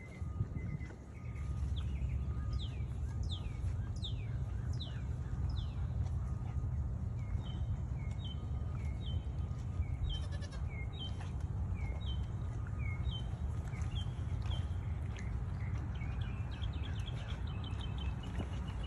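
A songbird singing outdoors: a repeated phrase of falling whistled slurs, about two a second, which changes to paired two-note whistles and then a quick trill near the end. A steady low rumble runs underneath.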